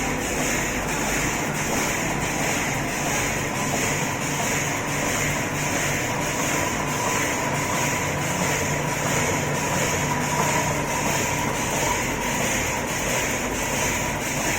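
Automatic cutlery packing machine running steadily, with a regular cycle of about two beats a second over a steady hum.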